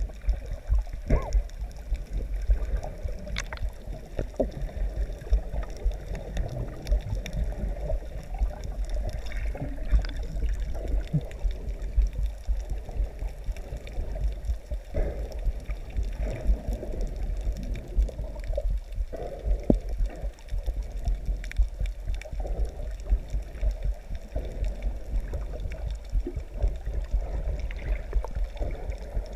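Muffled underwater sound through a GoPro's waterproof housing: a constant, fluctuating low rumble of water moving around the camera, with gurgling and scattered small clicks and knocks.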